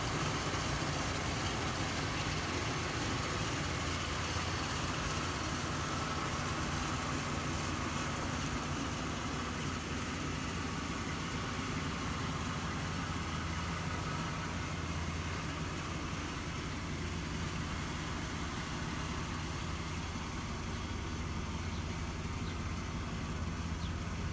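2004 Ford Explorer's engine idling steadily.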